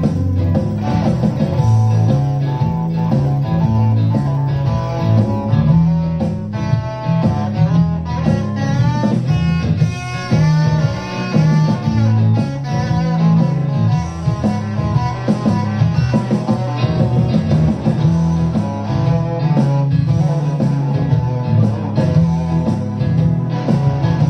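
Electric guitar played through an amplifier, improvised: low riffs and chords mixed with a flurry of quick lead notes through the middle.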